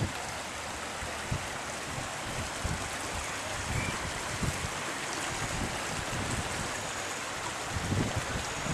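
Floodwater rushing steadily in a creek, with short low thumps of wind on the microphone.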